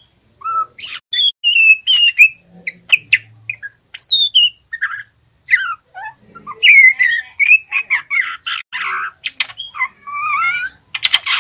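Juvenile male white-rumped shama twittering: a rambling string of short whistled chirps and gliding notes with brief pauses, the unformed practice song of a young bird learning to sing. A denser burst of rapid, scratchy chirps comes near the end.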